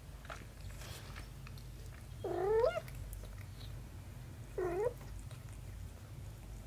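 Cat meowing twice: a longer, louder meow about two seconds in, then a shorter one a couple of seconds later.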